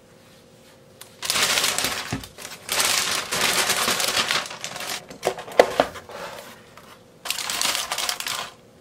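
Thin plastic carrier bag rustling and crinkling in several bursts as a cardboard takeout box is pulled out of it, with a few sharp clicks about halfway through, then aluminium foil lining crinkling as the box is opened.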